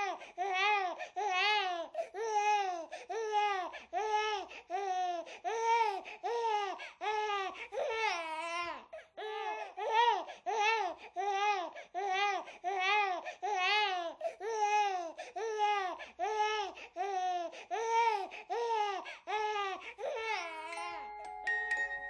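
A baby's voice in a long, regular run of short rising-and-falling calls, about two a second. Near the end the calls stop and a few chiming music notes begin.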